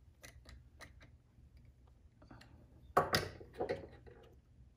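Light metallic clicks and ticks of a hand tool on small screws of an RC car's motor mount and pinion, a quick run of about four or five a second at first, then scattered, with one louder knock about three seconds in.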